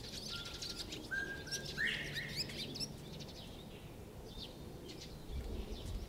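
Northern bobwhite whistling its call: two level whistled notes, then a sharply rising one about two seconds in, with scattered higher chirps around it.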